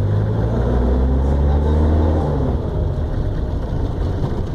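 Minibus engine heard from the driver's footwell, pulling under throttle: its deep hum climbs in pitch for about two seconds, then drops away, leaving road and engine rumble.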